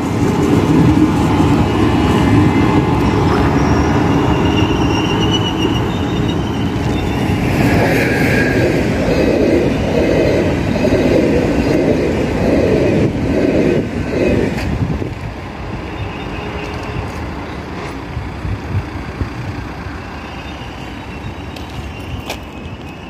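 ÖBB class 2070 diesel-hydraulic shunting locomotive running past on the track, its engine and wheels giving a loud rumble with a brief thin wheel squeal. A rhythmic clatter of wheels over rail joints runs through the middle, and the sound drops to a quieter rumble after about 15 seconds.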